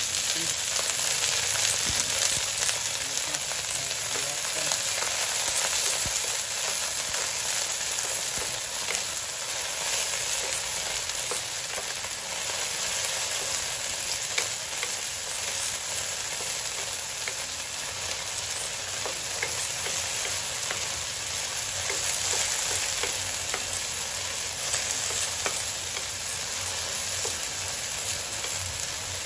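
Beans frying in hot oil with garlic and ginger: a steady sizzle as they are stirred in the pan, with small clicks and ticks scattered through it.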